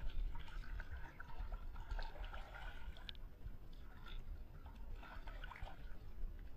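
Lake water splashing and dripping in small, irregular splashes as a hand scoops it over a soaked sneaker and jeans leg in shallow water.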